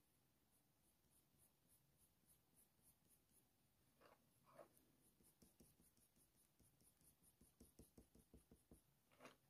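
Faint, quick scratching of a Faber-Castell Polychromos coloured pencil shading on heavy hot-press watercolour paper. It starts with a couple of scrapes about four seconds in, then settles into short strokes at about five a second.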